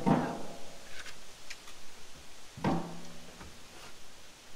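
Knocks and clunks of things being handled and set into a wheelbarrow, each with a short low ring after it: one right at the start and another about two and a half seconds in, with light clicks and taps between.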